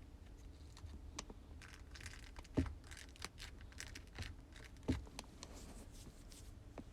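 Slime being squeezed and poked by hand: faint sticky clicks and crackles throughout, with two louder soft pops about two and a half and five seconds in.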